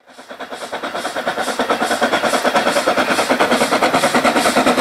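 Steam locomotive working at speed, its exhaust beating in a rapid, even rhythm of about five beats a second, growing louder over the first couple of seconds.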